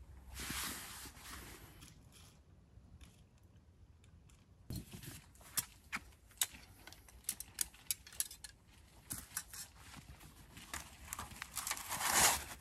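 Camping gear being handled by hand: a rustle of fabric or packaging just after the start, a run of sharp clicks and taps in the middle, and a louder rustle near the end.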